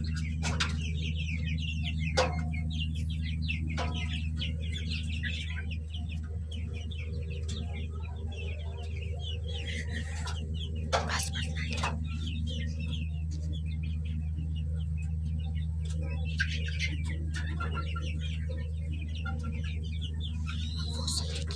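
Chickens clucking and calling in many short notes, over a steady low hum, with a few sharp clicks.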